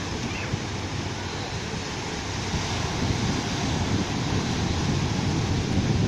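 Sea waves breaking and washing up a sandy beach: a steady rush of surf that grows louder about halfway through.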